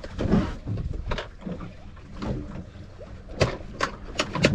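Wind on the microphone and low sea-and-boat rumble, with a few sharp clicks and knocks about three and a half seconds in as fishing tackle is handled.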